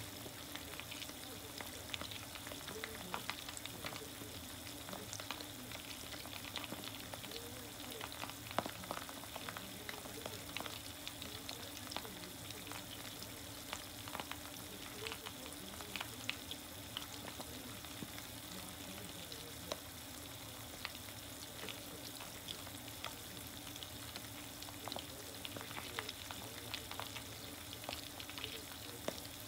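Karaage chicken pieces deep-frying in oil in a small aluminium mess tin: a steady sizzle with frequent small crackles and pops.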